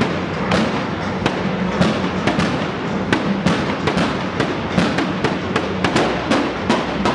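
Stage pyrotechnics going off: a string of sharp bangs, two or three a second at irregular spacing, over a steady din.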